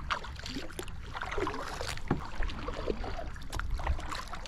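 Water lapping and splashing around a fishing kayak, with irregular small knocks and a steady low wind rumble on the microphone.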